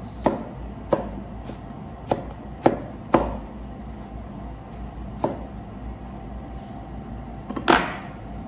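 Kitchen knife chopping eggplant on a cutting board: separate sharp strikes at an uneven pace, often about half a second apart, the loudest one near the end.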